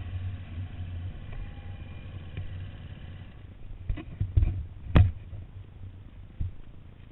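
KTM 250 EXC-F's single-cylinder four-stroke engine idling low, the hum thinning out after about three and a half seconds. A few sharp knocks come between four and five seconds in, the loudest near five seconds.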